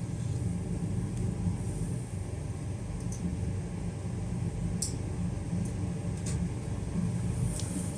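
Steady low fan hum of the workroom's air handling, with a few faint light ticks from small parts being handled.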